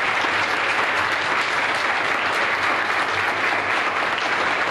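Crowd applauding: steady, dense clapping from many hands with no break.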